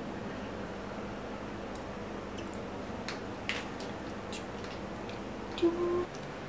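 Faint sips and small mouth clicks from drinking hot chocolate out of a mug, over a steady quiet hiss of room noise, with a brief hummed tone near the end.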